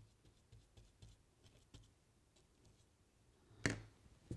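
Quiet handling of a plastic model railway point and glue brush on the baseboard: faint light ticks, then a sharp knock about three and a half seconds in and a second, shorter one just before the end.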